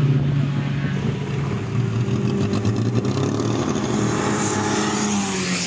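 A car's engine running on a race track, with a hiss that grows from about four seconds in as a blue car approaches down the straight and passes.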